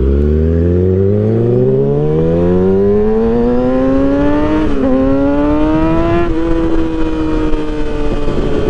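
2012 Kawasaki ZX-6R's inline-four through an M4 exhaust with the baffle removed, accelerating hard. The revs climb steadily for about five seconds, dip briefly at a gear change, climb again, then drop at a second shift and settle at steadier revs.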